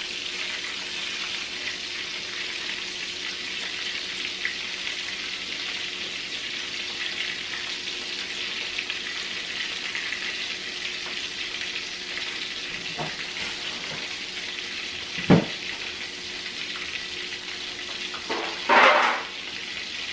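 Panko-breaded cod fillets frying in hot oil in a cast-iron skillet, a steady sizzle. There is a sharp knock about fifteen seconds in, and a short, louder noise near the end.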